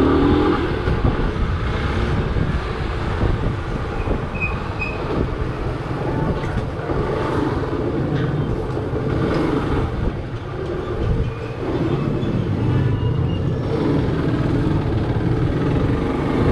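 A motorcycle being ridden through city streets: its engine running with a steady rumble of wind and road noise.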